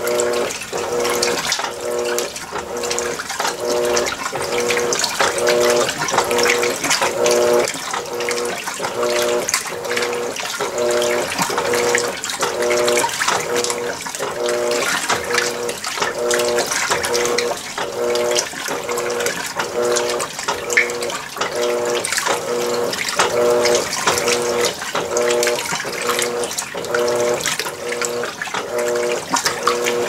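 Electrolux Premium Care LWI13 washing machine washing a load of clothes: its motor hums in short, even pulses about twice a second as the wash action switches back and forth, over steady water noise.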